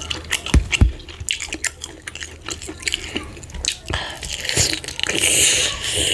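Close-miked wet eating sounds of fufu with slimy ogbono soup: a run of quick sticky clicks and smacks of chewing, then a longer hissing, sucking sound from about four seconds in.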